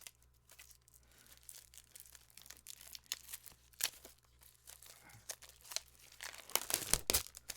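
Plastic wrapping and cardboard packing being torn and crinkled open by hand: an irregular run of crackles and rips, louder and denser near the end.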